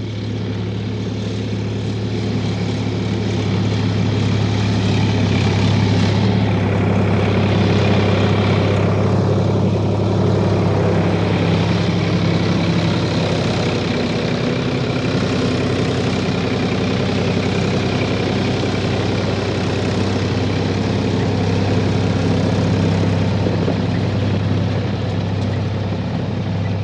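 Combine harvester's heavy engine running at a steady speed, a loud, even, low drone that holds without change.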